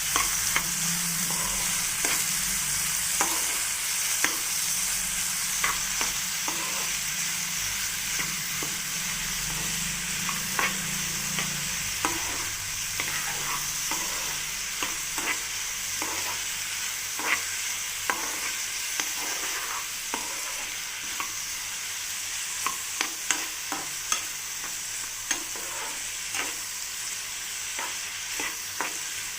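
Potato pieces sizzling as they fry in oil in a pan, stirred with a spatula that scrapes and taps against the pan again and again, the taps coming more often in the second half.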